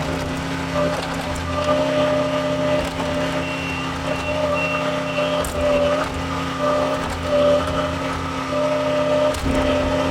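John Deere 410 backhoe's diesel engine running steadily, its pitch rising and dipping slightly as the machine works.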